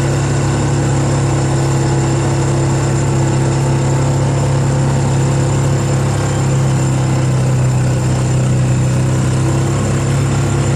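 Engine of the towing vehicle running steadily at an even speed, heard from on board as a constant low hum with no change in pitch.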